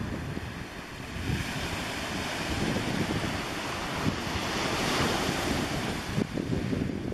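Surf washing onto a pebble beach, one wash swelling up from about a second in and falling away near the end, with wind buffeting the microphone.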